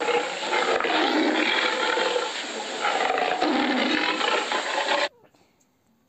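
Cougar (mountain lion) call, loud and lasting about five seconds, cutting off suddenly.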